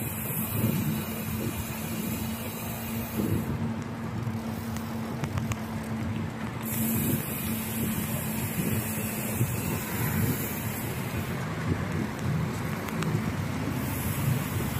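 Wind buffeting the microphone of a camera riding on a moving bicycle, with road noise underneath. A steady low hum runs beneath it and stops about two-thirds of the way in.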